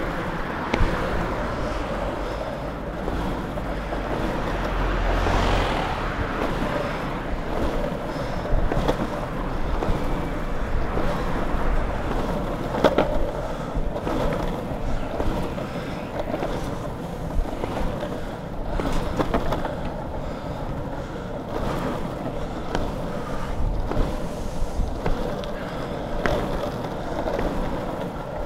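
Longboard wheels rolling on asphalt: a steady rumble with a few sharp clicks as the wheels run over cracks and joints in the road.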